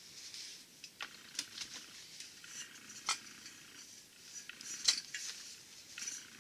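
Automatic transmission fluid pouring briefly from a plastic jug into a Studebaker torque converter. Then comes a string of sharp clinks and knocks as the converter's steel shell and ring gear are handled and tipped on the bench, with one louder knock near the middle.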